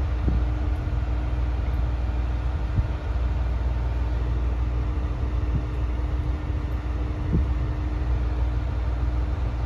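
ET122 diesel railcar standing with its engine idling: a steady low rumble with a constant hum over it.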